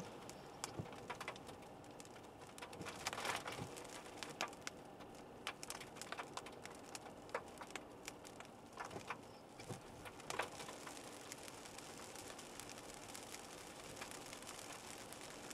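Rain falling on a car, with scattered irregular drop ticks over a steady wash and a faint steady hum underneath.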